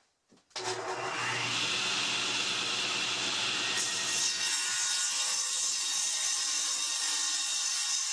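Contractor-style table saw switched on about half a second in, its motor coming up to speed with a rising whine. From about four seconds in the blade is cutting a pressure-treated 1x6 board, a blade judged worn and in need of replacing.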